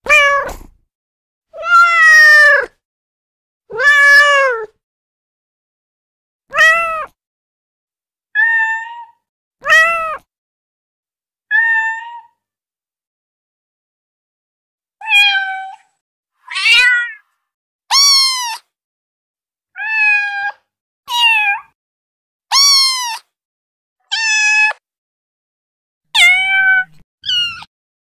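Recorded cat meows played one after another from a cat-sound app, about sixteen separate calls, each under a second, with silence between them. The first few are lower and drawn out; after a short pause midway, higher-pitched kitten meows follow more quickly.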